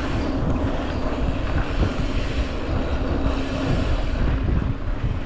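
Wind rumbling on the microphone of a mountain bike riding along a dirt trail, with a steady low hum underneath.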